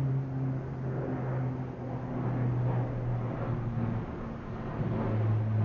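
Aircraft passing overhead: a steady low engine drone whose pitch slowly falls.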